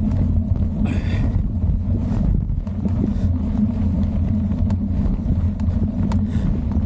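Mountain bike rolling down a dirt singletrack: a steady low rumble of tyres on the trail and wind buffeting the handlebar camera's microphone, with light clicks and rattles from the bike over bumps, one short clatter about a second in.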